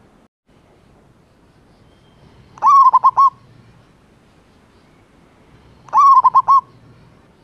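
Male zebra dove (perkutut) calling to a female with its cooing song: two phrases about three seconds apart, each a rising first note followed by a quick run of four short notes.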